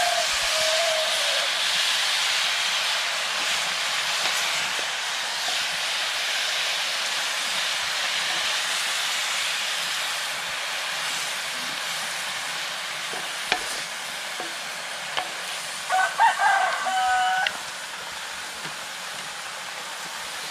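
Frog meat sizzling steadily as it is stir-fried in a hot metal wok, the sizzle slowly dying down, with a few clicks of wooden spatulas against the pan. About three-quarters of the way in, a rooster crows once.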